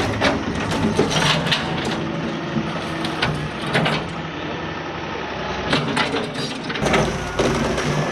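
A heavy tree-cutting machine's engine running steadily, with about a dozen sharp cracks and snaps of wood breaking and splintering throughout.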